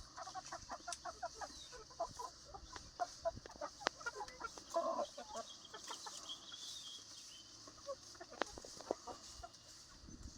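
A flock of chickens clucking, many short clucks in quick succession, busiest in the first half, with a louder call about five seconds in. A few sharp clicks sound among them.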